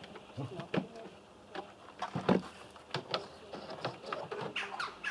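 Irregular light knocks and clicks of wooden flooring planks being handled and pressed together on a wooden board, with one louder knock about two seconds in.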